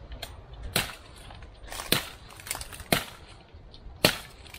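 A series of sharp woody snaps and cracks, about five in a few seconds, the loudest near the end: twigs and branches breaking in a mangrove thicket.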